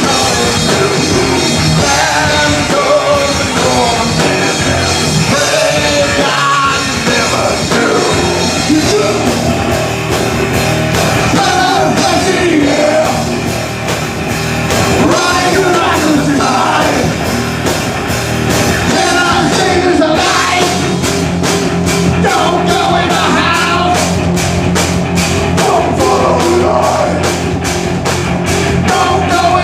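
Live rock band playing a song with a singer over drums. About two-thirds of the way through, a fast, even beat of sharp hits comes in.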